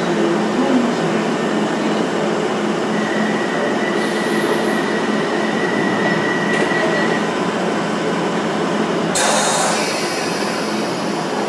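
London Underground 1973 Stock tube train standing at the platform with a steady hum while its doors close, a steady high tone sounding for about four seconds. About nine seconds in, a sudden burst of hiss lasts a couple of seconds.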